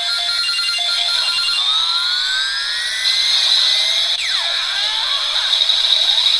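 Electronic pachinko-style sound effects from a homemade circuit: a quick repeating beep pattern, then several rising pitch sweeps, a steady high tone and falling sweeps.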